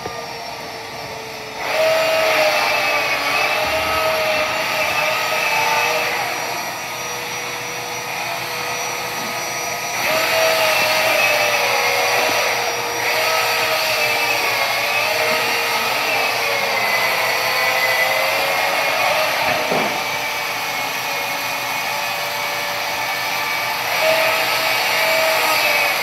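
Handheld electric rotary tool carving into a block of ice, its high motor whine wavering in pitch as the bit bites and eases. The whine starts about two seconds in, falls back for a few seconds in the middle, then picks up again, over a faint steady hum.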